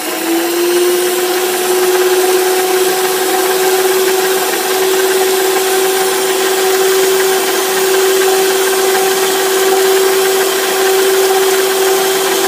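Electric stand mixer running at a constant speed, its motor giving a steady, loud hum over a whirring rush as the twin beaters whisk a runny egg-and-oil batter.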